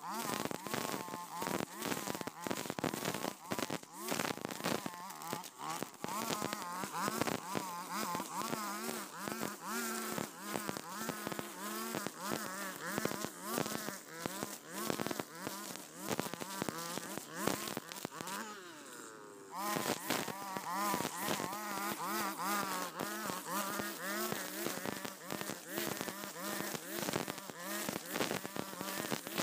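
Husqvarna 542RBS backpack brush cutter's two-stroke engine running under load while cutting long grass, its pitch rising and falling as the throttle and load change, with many short sharp strikes from the cutting head. About 18 seconds in the engine drops away briefly, then picks back up a second or so later.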